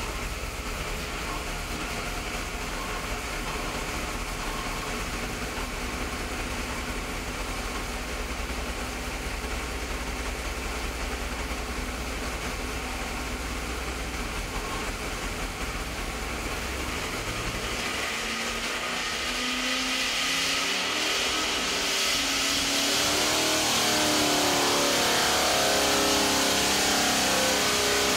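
SB2 small-block Chevrolet race V8, carbureted, running on an engine dyno. It runs steadily at low revs for about the first two-thirds, then the revs climb smoothly and it grows louder to the end, as in a dyno pull under load.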